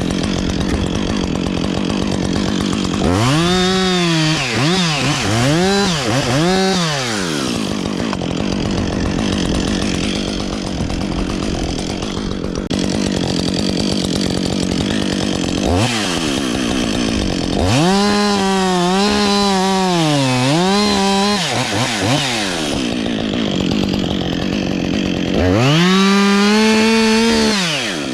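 Two-stroke chainsaw run up to full throttle in three spells, its engine speed dipping and recovering several times as it works, with lower running in between.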